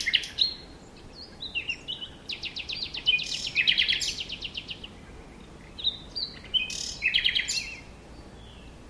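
Birds calling: short high chirps and quick trills in bouts, with a brief pause about five seconds in and a lull near the end.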